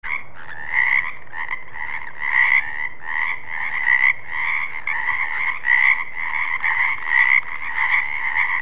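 Frog croaking in a steady, unbroken run of short repeated calls, several a second.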